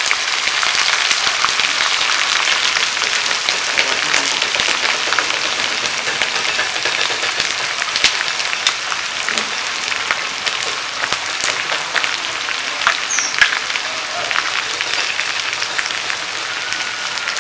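Onion paste frying in hot oil in an iron karahi: a dense, steady sizzle with many small crackles and pops, just after a spoonful of the paste goes into the oil.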